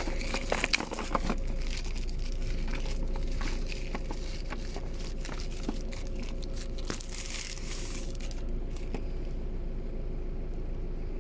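Packaging being crinkled and torn open by hand: a dense run of small crackles and rustles that thins out about eight seconds in.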